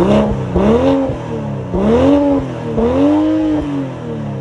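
2022 BMW M340i's turbocharged 3.0-litre inline-six free-revved through its exhaust while parked: four throttle blips, each a rising then falling engine note, the last held a little longer.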